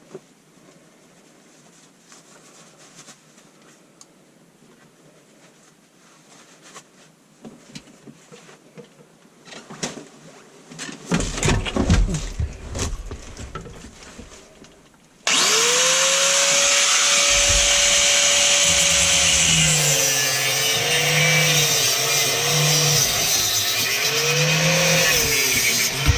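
Handling knocks and rattles, then about 15 seconds in a power cutting tool starts abruptly and cuts through the drain pipe, its motor pitch sagging and recovering as it bites, with a loud hissing grind.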